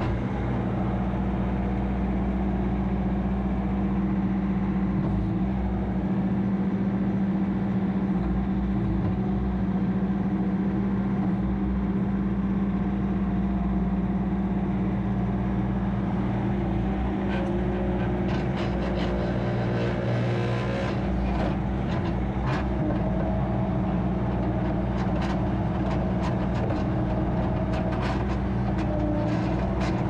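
The 49 hp Tier 4 diesel engine of a 2016 Bobcat S530 skid steer loader running steadily as the machine drives. From about halfway through there is a run of sharp clicks and rattles.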